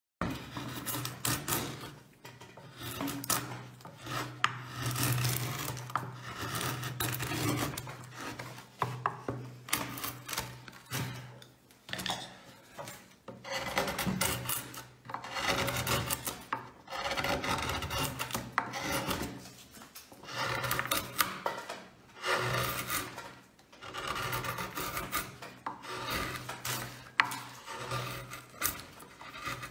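Hand carving chisel paring softwood, each cut a short rasping scrape through the grain. The strokes come one after another about a second apart, some ending in a sharp tick.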